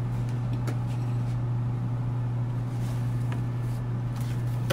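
A steady low electrical hum, with a couple of faint knocks as the coffee pot is handled.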